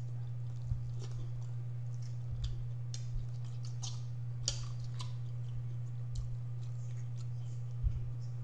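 Someone eating pizza: soft chewing and mouth sounds, and a few short clicks of a fork against the plate. A steady low hum runs underneath.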